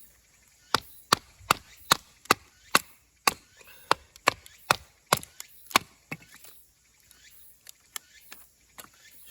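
Chopping strikes on wood, a steady run of sharp knocks about two and a half a second for some five seconds, then a few lighter knocks.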